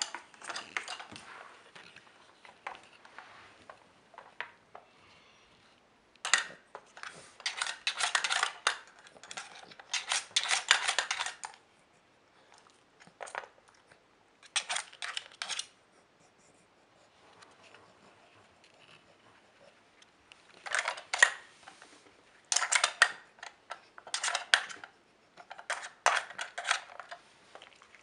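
Hard plastic pieces of a Trixie level 2 dog strategy game clicking and clattering as a dog noses at the sliders, cones and lids to get at hidden treats. The rattling comes in several runs of quick clicks a few seconds long, with short quiet pauses between.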